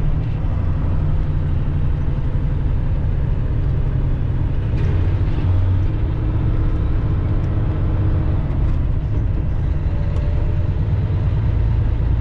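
Semi-truck's diesel engine and tyres heard inside the cab while driving, a steady low rumble.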